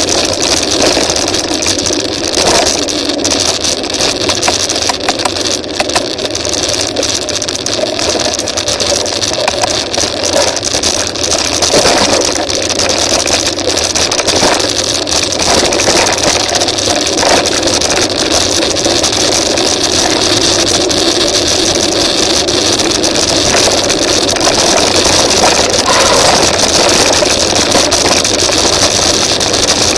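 Mountain bike riding fast over a dirt forest track: a steady rushing noise with frequent small rattles and knocks from the rough surface.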